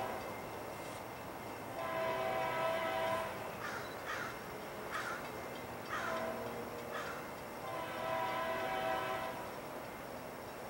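Faint locomotive air horn sounding two long blasts, each a chord of several notes, the first about two seconds in and the second near the end. Between them a crow caws about five times, roughly once a second.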